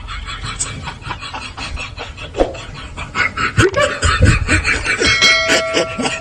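Laughter, getting louder about three and a half seconds in.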